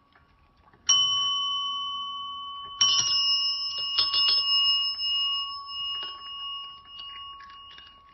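Chrome desk service bells struck by cats' paws: a bright ding about a second in and a second one near three seconds, each ringing on and slowly fading, with a few lighter taps and clinks after.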